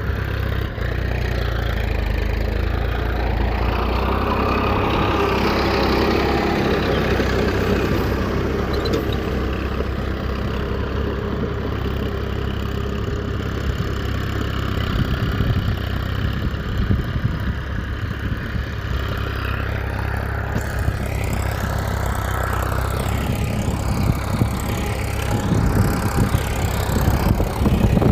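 A small engine running steadily, with rattling that grows louder near the end.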